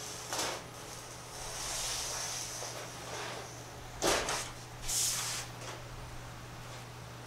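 Marking out a paper template on a sheet-metal bench top: faint scratching and rustling, with a stretch of scratchy noise between about one and three seconds in. Louder short handling noises come about four and five seconds in.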